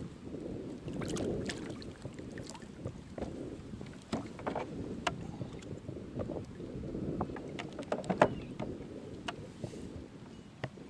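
Wind buffeting the microphone over a steady low rumble, with scattered short clicks and knocks as a just-landed largemouth bass and tackle are handled aboard a kayak.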